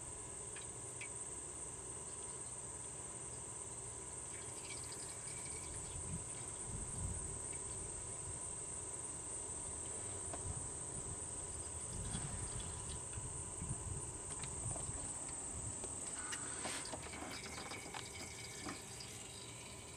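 Motor oil from a quart bottle trickling faintly down through a stripped Grand Am GT cylinder head toward the bottom of the engine, over a steady high chirring of crickets, with a few low bumps and clicks.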